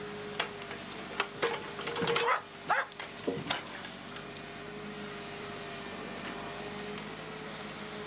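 A steady machine hum with a few sharp knocks and short squeals clustered in the first three and a half seconds.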